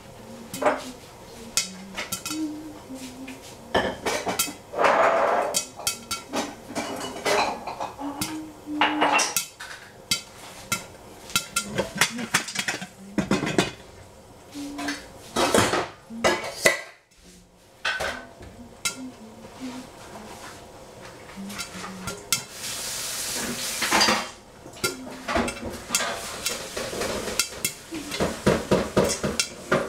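Kitchen pots, pans and utensils clattering and clinking as food is prepared, with scattered knocks throughout. A couple of seconds of hissing come a little past the middle, and a run of quick, rhythmic taps comes near the end.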